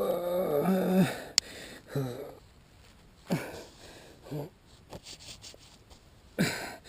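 A person with the wind knocked out of them gasping and groaning for breath: a wavering groan of about a second at the start, then several short gasps spaced a second or so apart.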